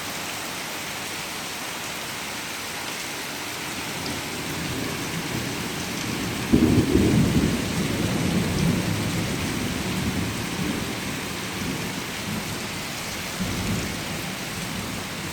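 Steady heavy rain, with a low rumble of thunder breaking in suddenly about six seconds in and fading over several seconds, and a fainter rumble near the end.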